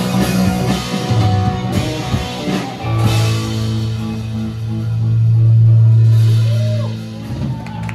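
Live rock band with electric guitar, drum kit and upright bass playing the final bars of a song, then holding one closing chord from about three seconds in that swells and dies away near the end.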